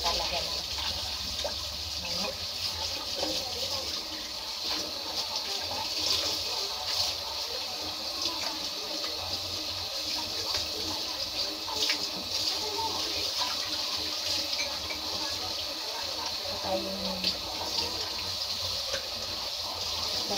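Kitchen faucet running steadily into a sink as a raw chicken is rinsed under the stream by hand, with water splashing off the meat and a few brief sharper splashes.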